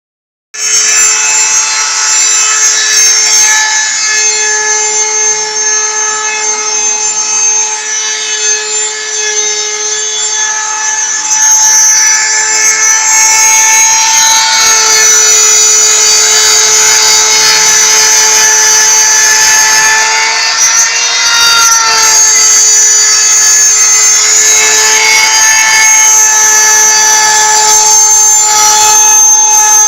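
Homemade CNC machine running, its motor giving a loud, steady whine whose pitch shifts slightly now and then.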